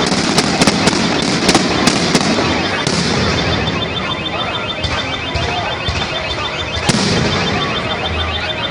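Fireworks going off: a quick run of sharp bangs in the first three seconds, then a dense, continuous crackle with one loud bang near seven seconds.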